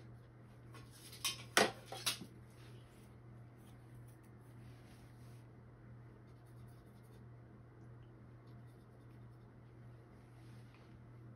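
A painter's brush and paint being handled off-canvas: a few sharp taps between one and two seconds in, then faint, intermittent scratching of bristles. A steady low hum runs underneath.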